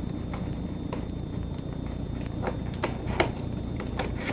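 Product box being opened by hand: irregular clicks and crackles of the packaging being handled, the sharpest a little after the middle and near the end.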